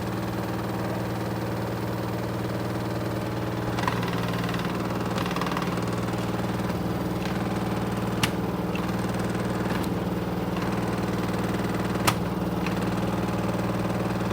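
Washing machine drum spinning at about a thousand RPM on its spin cycle, a steady motor hum that grows slightly louder about four seconds in. Three sharp knocks break through it.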